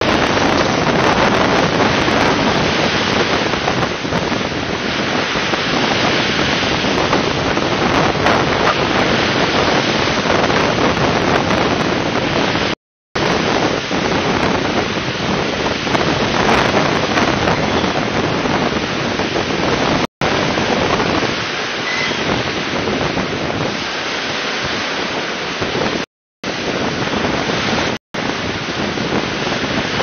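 Black Sea surf breaking steadily on a pebble shore, heard as a continuous wash of noise mixed with wind buffeting the microphone. The sound cuts out completely for a split second four times.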